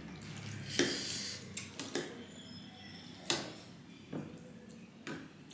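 Metal forks and spoons clinking and scraping against ceramic bowls as noodle soup is eaten: about six light separate clicks, with soft mouth and eating sounds in between.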